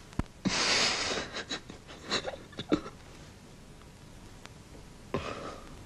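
A person breathing heavily: a loud exhale about half a second in, a few small clicks and rustles over the next two seconds, then another breath near the end.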